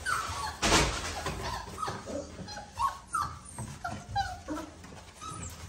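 A litter of five-week-old Boerboel puppies at play, giving many short high-pitched cries, with a brief scuffling noise about a second in.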